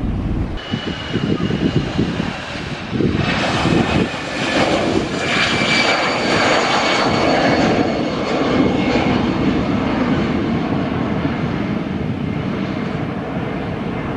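Airbus A320's twin turbofan engines at take-off thrust as the airliner climbs away just after lift-off: a loud jet roar with steady high whining tones, strongest in the middle and easing toward the end.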